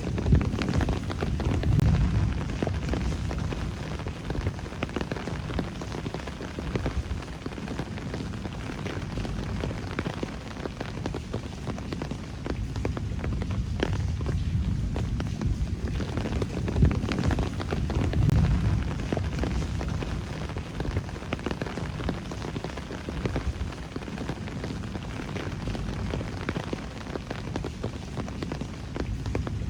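Steady rain on city streets and roofs: a dense patter with many separate drops ticking close by, over a low rumble that swells about two seconds in and again midway.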